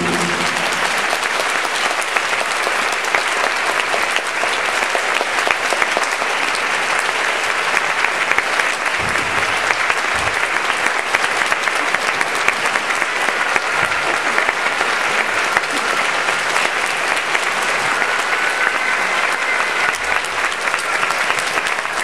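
Theatre audience applauding, a dense and steady clapping that holds at the same level throughout.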